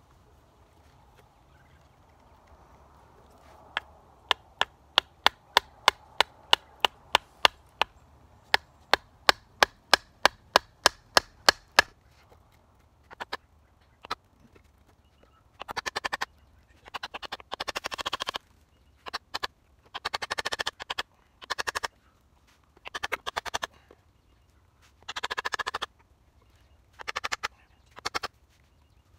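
A wooden baton knocking on the back of a blade to split green wood (batoning): a run of sharp, regular knocks about three a second, then longer, noisier bursts of splitting and knocking from about halfway through.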